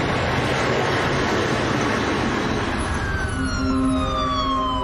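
Road traffic noise, then a siren falling in pitch from about three seconds in, with steady held tones coming in just after.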